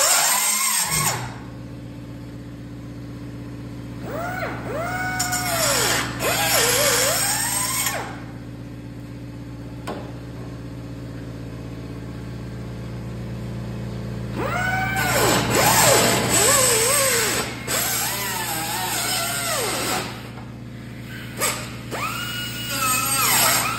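Handheld cutoff tool with a diamond cutting wheel, cutting through a rusty car floor pan in three bursts. Each time its whine rises as it spins up, holds while cutting, then falls as it winds down. A steady low hum runs underneath.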